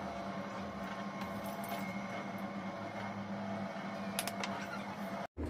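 Steady low electrical hum, with a few faint clicks about four seconds in; the sound cuts out abruptly just before the end.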